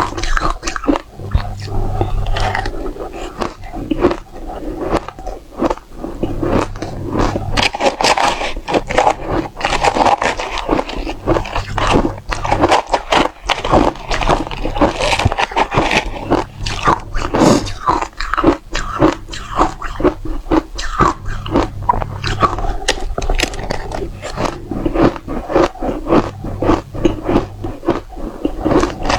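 Close-up biting and crunching of frozen dry-textured matcha ice: a dense run of sharp cracks and crunches as the ice is bitten and chewed.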